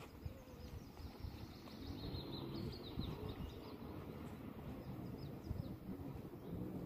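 Low rumbling outdoor background noise with faint, high bird chirps: a quick run of chirps about two seconds in and another near the end.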